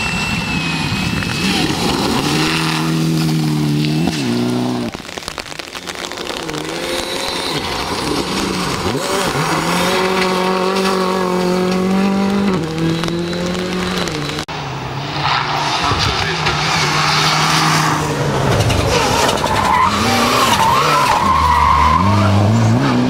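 Rally cars at speed: Mitsubishi Lancer Evolution and Ford Fiesta rally engines held at high revs, rising and dropping in steps at gear changes, over gravel spray and tyre noise. The sound changes abruptly twice as different cars pass.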